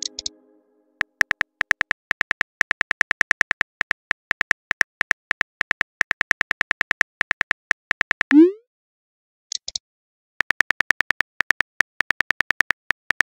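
Simulated phone keyboard typing clicks, rapid and even, several a second, broken about eight seconds in by a short rising pop as the message sends, then more rapid typing clicks.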